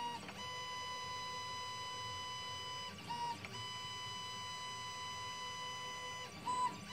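Stepper motors of a small CNC pen plotter whining at a steady pitch as the pen draws straight hatch lines. The whine breaks and shifts pitch briefly about three seconds in and again near the end.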